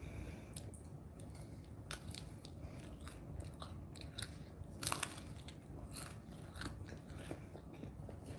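A person biting and chewing a crisp waffle ice-cream cone close to the microphone: a string of small crunches and mouth clicks, the loudest crunch about five seconds in.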